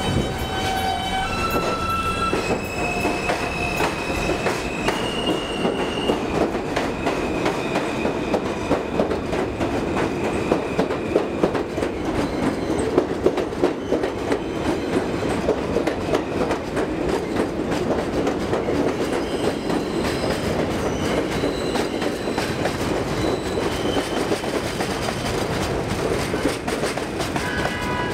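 R160 subway train pulling out and accelerating past. Its propulsion gives a whine that steps upward in pitch over the first several seconds, then the cars roll by with a continuous rumble and wheels clacking over rail joints.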